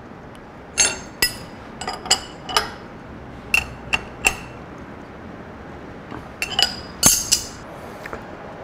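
Sharp metallic clinks and ticks of a drill bit being fitted into a drill chuck and tightened with a chuck key, about a dozen separate clinks, each ringing briefly.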